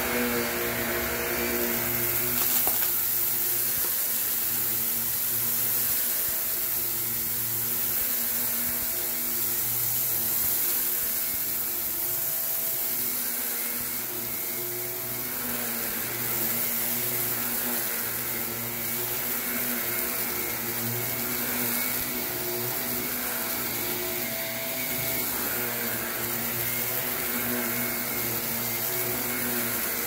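Shark upright vacuum cleaner running steadily on carpet with a constant motor hum and whine, crunching and crackling as it sucks up a pile of shredded bits and lint.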